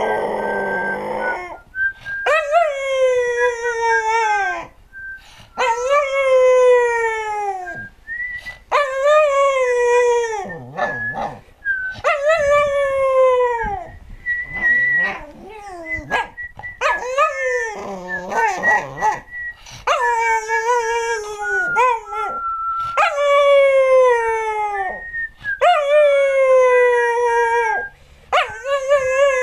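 American cocker spaniel howling, or 'singing': about nine long howls in a row, each roughly two seconds and sliding down in pitch, with short breaks between them.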